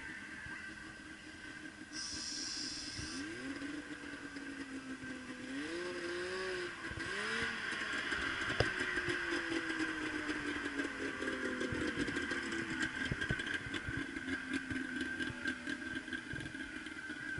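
Suzuki Jimny SJ30's small two-stroke three-cylinder engine working off-road at a distance. It revs up about three seconds in and again near the middle, then winds slowly down in pitch.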